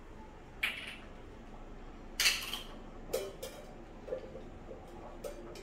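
Butter melting in a hot nonstick pan, giving a few short crackling hisses and spits over a low background hum, the loudest a little after two seconds in.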